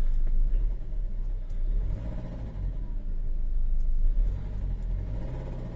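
Nissan X-Trail's 2.0 dCi Renault four-cylinder diesel running with a rhythmic knock, which the mechanic feels is like a piston hitting. Its large injector corrections and the smell of unburnt diesel point to a fuelling fault.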